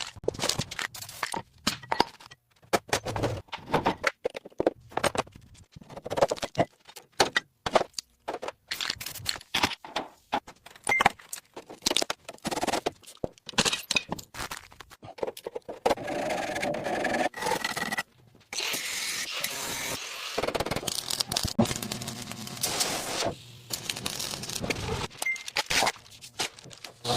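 Small metal parts clinking, rattling and scraping as they are handled, in many short clicks. In the second half there are a couple of steadier stretches of noise a few seconds long.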